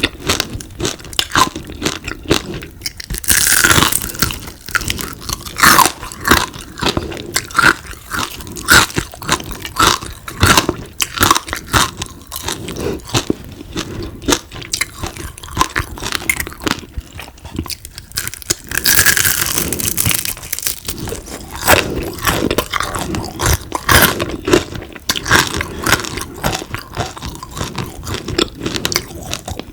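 A person biting and chewing crispy deep-fried frogs: repeated loud crunches, several a second.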